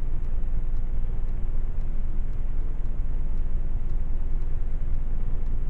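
Steady low rumble of background noise, even and unchanging, with nothing else standing out above it.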